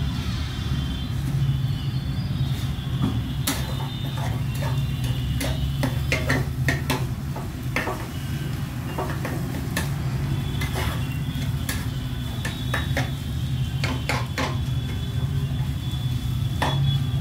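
Metal spatula scraping and clinking against a stainless steel pan as egg bhurji is stirred, in many short irregular strokes, over a steady low hum.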